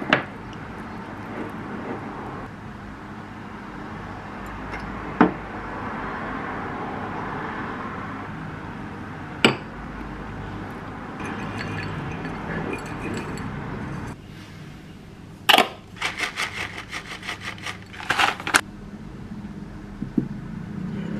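Metal spoon clinking on a ceramic bowl while Greek yogurt is spread and toppings are added: sharp single clinks every few seconds, then a quick run of rattling clicks near the end.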